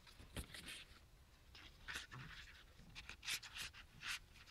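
Several brief, faint rustles and scrapes of paper and cardstock being handled, as a scrapbook tag slides out of and back into its pocket on an album page.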